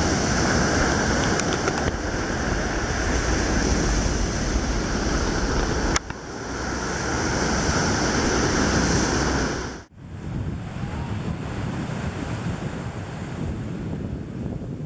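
Waves breaking and washing up the beach, with wind on the microphone; the sound breaks off briefly about six seconds in and turns quieter about ten seconds in.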